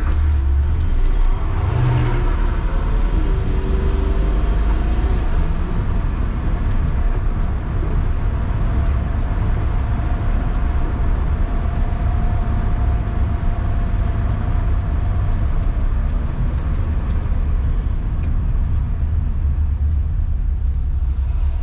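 1978 Datsun 280Z's straight-six engine and road noise heard from inside the cabin while driving, a steady low drone.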